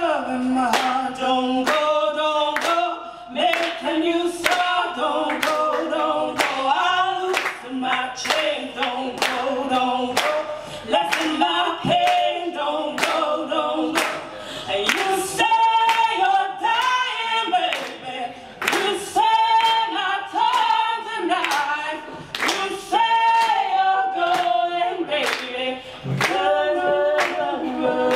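Women's voices singing a cappella together, with steady hand claps keeping the beat.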